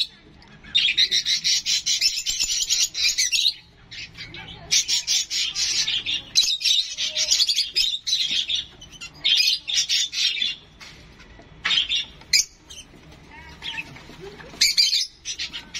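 Young rosy-faced lovebird giving rapid, rasping food-begging chirps while being hand-fed formula from a syringe. The calls come in runs of one to three seconds with short pauses between them.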